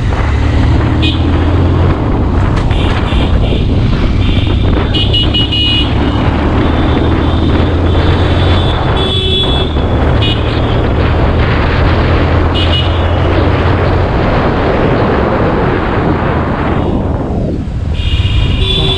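Pulsar motorcycle's single-cylinder engine running steadily on the move, under a haze of wind and road noise. Short vehicle horn toots sound several times: about a second in, around five and nine seconds, and near the end. The engine hum drops away after about fourteen seconds.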